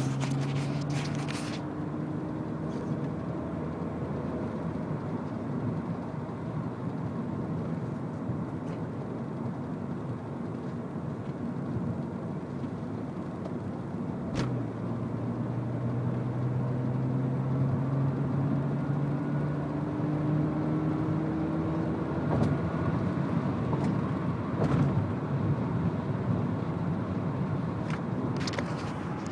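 BMW E46 330ci driving: a steady road noise with a low hum whose pitch slowly rises and falls with the car's speed, and a few short clicks. The car has a noise from the brakes when the brakes are not applied.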